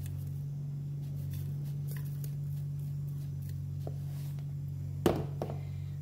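Steady low hum with faint kitchen handling noises, then one sharp knock about five seconds in as a plastic ice cube tray is handled.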